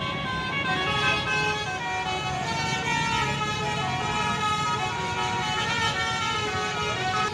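A bus's basuri musical horn playing a tune of held notes that change in steps, over a low engine rumble.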